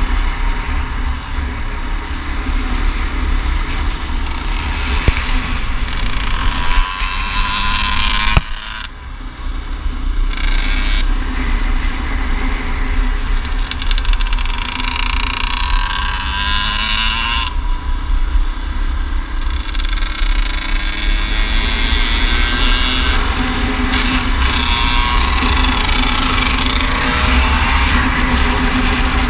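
Dirt bike engine running under way, its pitch rising and falling as the throttle opens and closes through the gears, with heavy wind rumble on the microphone.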